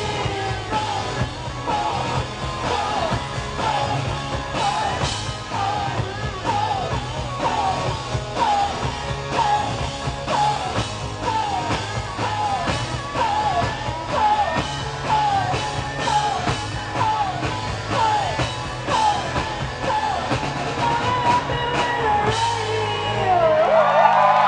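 Live rock band playing loudly through the club PA, with drums, bass and a short falling melodic figure repeated about once a second. Near the end the drums stop and a held chord rings on.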